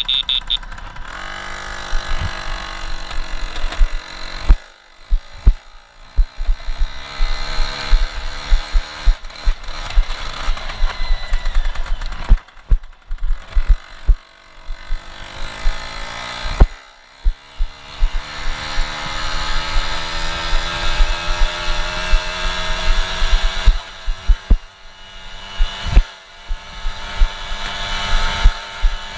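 Polini-tuned Piaggio Ciao SC moped's two-stroke engine pulling under throttle while being ridden. Its pitch climbs slowly over several seconds, drops away sharply about four times as the throttle is closed, and climbs again. Knocks and thumps come from riding over rough, rutted ground.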